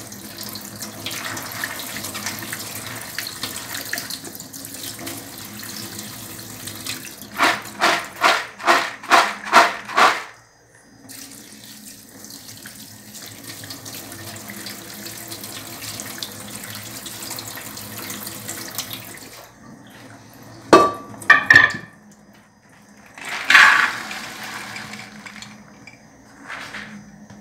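Kitchen tap running onto soaked dried beans in a plastic colander as they are rinsed by hand, with a run of about seven quick, loud rhythmic strokes about a third of the way in. The water stops about two-thirds through, followed by a few sharp knocks and clatters.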